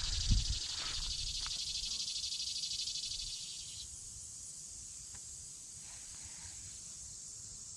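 Insects buzzing steadily in a high, rasping drone with fine rapid pulsing. About four seconds in, one buzz cuts off and a higher hiss carries on.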